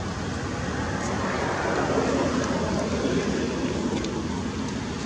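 A road vehicle passing: a steady rushing noise that swells about two seconds in and fades away again.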